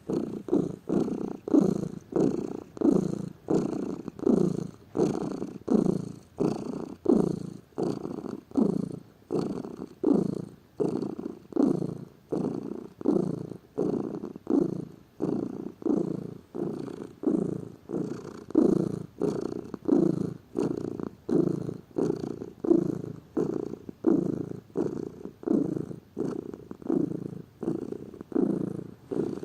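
Domestic cat purring close up, in a steady rhythm of swells that rise and fall with each breath in and out, each less than a second long.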